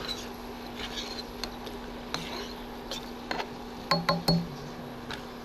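Metal spoon clinking against a pan as it stirs and skims simmering broth, with a few louder, ringing clinks about four seconds in.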